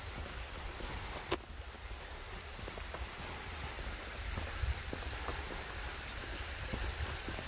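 Outdoor forest ambience: a steady noisy wash with a low rumble of wind on the microphone, and scattered faint light ticks.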